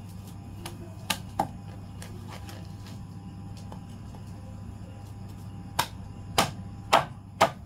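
Meat cleaver chopping through a roasted chicken onto a wooden cutting board: two sharp chops about a second in, then four more about half a second apart near the end, over a steady low hum.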